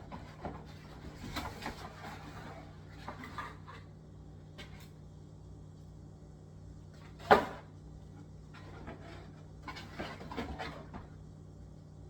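Handling noises while unpacking a box: scattered rustling and light knocks, with one sharp knock about seven seconds in, over a faint steady low hum.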